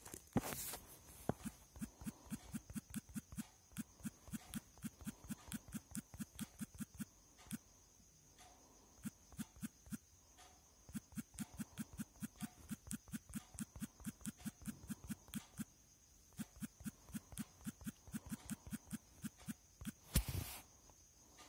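Runs of short, evenly spaced clicks, about four a second, stopping and starting several times over a faint steady high whine, with a louder thump near the end.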